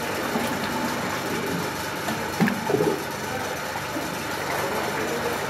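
Steady hum of workshop machinery, with a few short knocks about halfway through.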